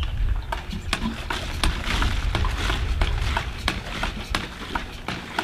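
AK20 manual well pump worked by hand: repeated knocks and clicks from the handle and pump with each stroke, over the hiss of water pouring from the spout into a plastic gallon jug.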